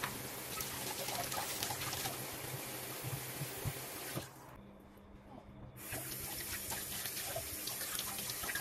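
Kitchen tap running into a ceramic sink, the stream splashing over hands and a turkey leg being rinsed under it, with small clicks and splashes. The water sound dips for a moment about halfway through.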